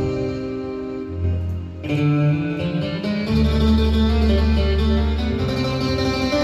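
Roland XPS-30 keyboard playing a plucked-string voice from an Indian sound package, over held bass notes that change every second or two.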